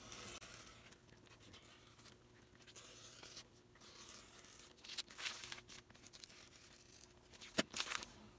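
Fiskars 45 mm rotary cutter slicing through pattern paper on a cutting mat: faint, scratchy strokes, louder about five seconds in and again near the end, with one sharp click near the end.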